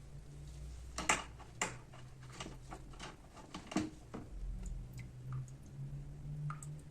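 A run of light clicks and taps of small parts being handled on a workbench, about a dozen in three seconds, then a few fainter ticks, over a steady low hum.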